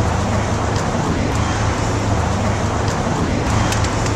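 Steady city street traffic noise, with a constant low rumble underneath.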